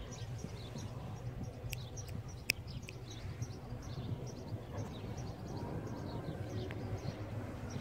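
Small birds chirping again and again, short high notes, over a steady low rumble, with one sharp click about two and a half seconds in.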